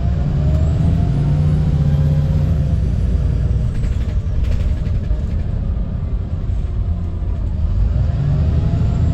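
VDL SB200 Wright Pulsar 2 single-deck bus running under way, heard from inside the saloon: a steady low engine drone with a whine that rises over the first two seconds and then falls away. A short sharp noise cuts in about four and a half seconds in.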